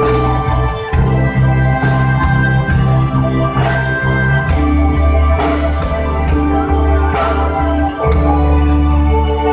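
Instrumental passage of a pop ballad played live by a violin ensemble with electronic keyboard backing and a steady beat, without vocals.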